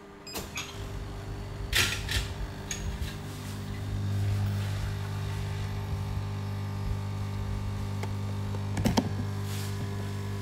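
Espresso machine's vibration pump humming steadily as it pulls a double shot, very quiet for a vibration-pump machine; the hum starts about a second in and firms up around four seconds in. A few clinks of ceramic cups being set under the spouts come near the start.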